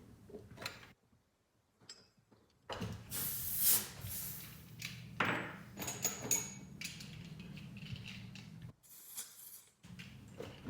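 Air hissing into a tubeless bike tire as it is inflated to seat the bead, starting a few seconds in and loudest at first, with a few sharp knocks partway through.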